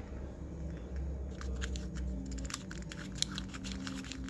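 Small plastic clicks from a fidget cube's buttons and switches being pressed and flicked, irregular and quick, coming thicker from about a second in, over a low steady hum.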